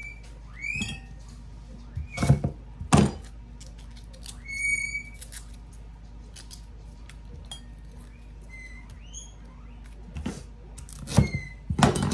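Chef's knife knocking on a cutting board while Brussels sprouts are trimmed and halved: a couple of sharp knocks a few seconds in, then a quick cluster of knocks near the end. A few short, high whistle-like chirps sound in between.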